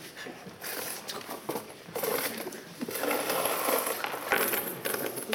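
Donated coins clinking and paper banknotes rustling as they are handled and counted out of a cardboard donation box, a busy crackle that grows louder about two seconds in.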